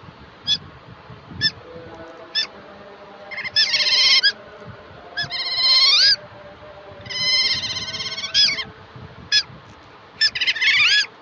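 Otter calling: a few single high chirps, then several runs of rapid, squeaky chirps, each run lasting about a second.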